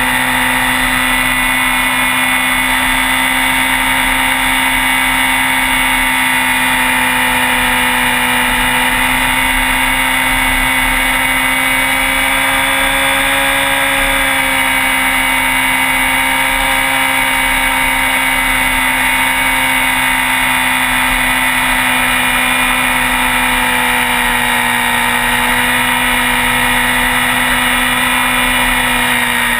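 Sport motorcycle engine running at steady cruising revs, its pitch rising slightly about halfway through and then easing back down.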